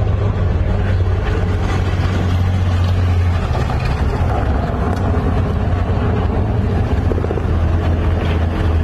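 A vehicle engine running, a steady low drone whose pitch shifts slightly about three and a half seconds in.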